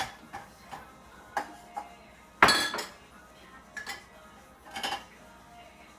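Dishes and cutlery clinking and clattering as they are taken out of a dishwasher and set down on a counter: a handful of separate knocks with brief ringing, the loudest clatter about two and a half seconds in.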